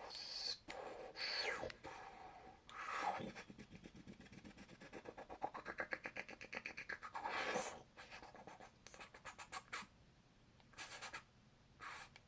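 A person making mouth sound effects imitating alien laser fire. The sounds are falling swoops, a fast, fluttering run of pulses in the middle, and a few short hissing puffs near the end.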